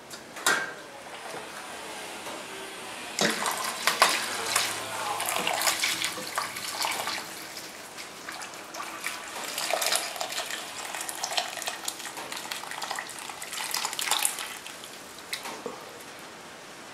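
Broth pouring from a saucepan through a mesh strainer into a stainless steel stockpot, with clinks of metal on metal from the pans and ladle. The pouring starts about three seconds in and tails off a couple of seconds before the end.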